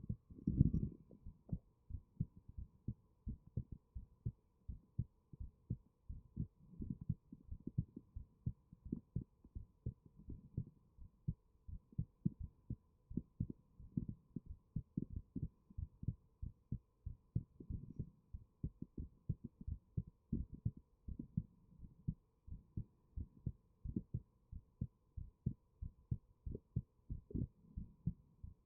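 Human heartbeat picked up close by a binaural microphone: a steady, regular run of low beats.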